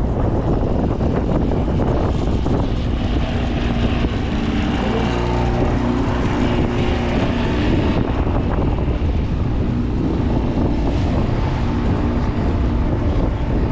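Boat engine running steadily under heavy wind buffeting the microphone, a low rumble with a faint steady hum in the middle.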